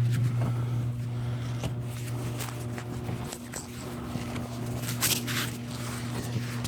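A steady low electrical hum, with footsteps and scuffing over it and a brief scrape about five seconds in.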